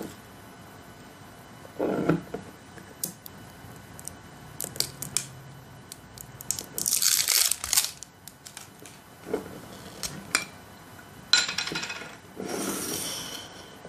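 Screw cap being twisted off a glass bottle of roasted snack mix, with small clicks and knocks of the glass on a wooden table. There are short noisy scrapes of the lid coming free, the loudest about halfway through and two more near the end.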